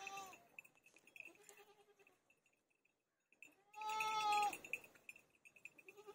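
Young female water buffalo calf calling: four calls, the loudest about four seconds in and lasting about a second.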